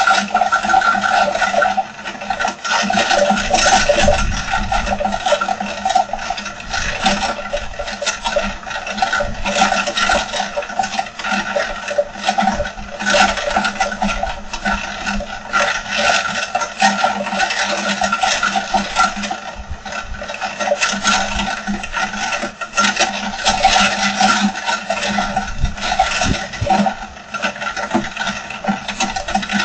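Heavy rain falling hard: a loud, continuous mass of rapid drop impacts that never lets up.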